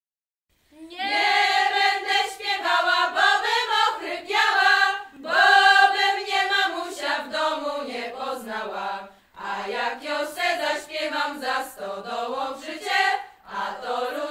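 A group of women singing a traditional Polish folk song together without accompaniment, mostly in one line of melody. The singing begins about a second in and runs in phrases broken by short breaths, about every four seconds.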